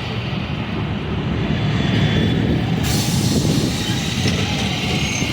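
Steady low rumble of passing vehicles, with a hiss that grows brighter about halfway through.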